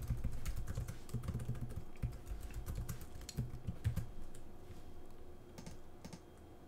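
Typing on a computer keyboard: quick, irregular keystrokes that thin out after about four seconds.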